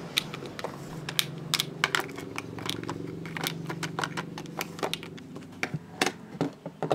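Quick light clicks and knocks of small items being handled on a desk and a small plastic drawer unit being opened, over a low steady hum.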